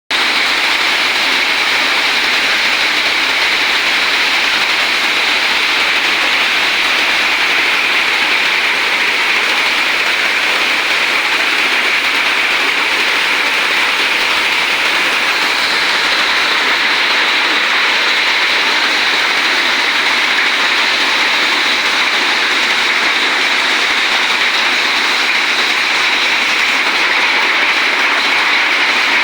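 Heavy rain pouring down, a dense, steady hiss that does not let up.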